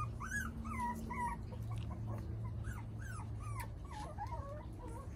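Puppies whimpering: a string of short, high whines, each rising and falling in pitch, about two or three a second.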